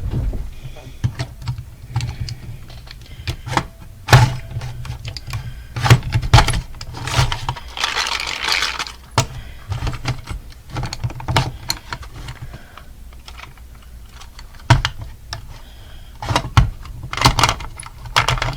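Irregular clicks, knocks and rattles of a plastic alarm clock being handled and worked on with hand tools, with a longer scraping stretch about eight seconds in.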